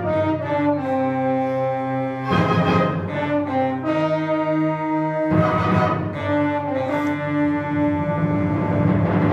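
Symphonic wind band playing sustained chords that shift every second or so, with loud accented full-band entries about two and five seconds in.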